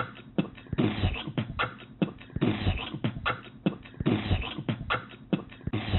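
Background music: a steady percussive drum beat with no singing or melody.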